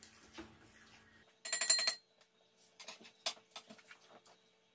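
A brief electronic beep, pulsing and shrill, about a second and a half in, then a few light clinks of a spoon and fork against a metal bowl and plates.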